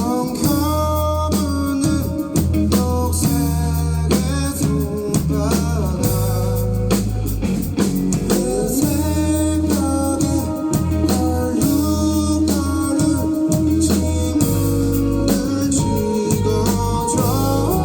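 Live band playing a song: a singer over guitar, with strong low bass notes and drums underneath.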